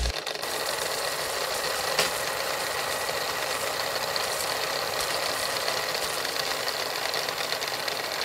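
Old film-projector sound effect: a steady mechanical whirring rattle under hiss and crackle, with a sharp click about two seconds in.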